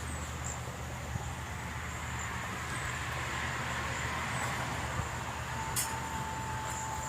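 Faint, short, high bird chirps repeating about once a second over a steady low rumble. A steady single tone joins about five and a half seconds in.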